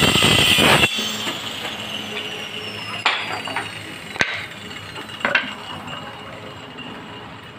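Workshop tool sounds: a loud rasping burst for about the first second, then three sharp knocks with a metallic ring, about a second apart, over a faint high whine that slowly falls in pitch.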